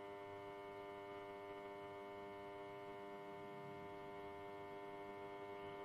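A steady electrical hum with many even overtones.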